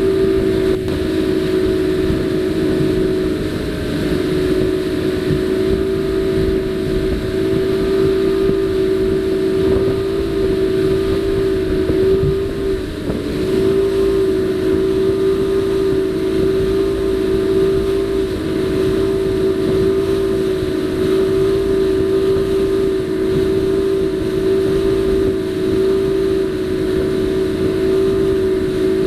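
Motorboat engine running hard at a steady pitch, with a rushing noise underneath; the pitch and level dip briefly about halfway through.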